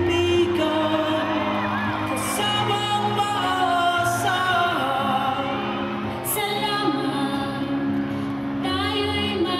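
A woman singing a Cebuano song into a microphone over a backing track, on long held notes.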